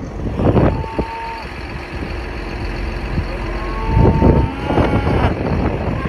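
A vehicle engine running, with two held high tones about three seconds apart.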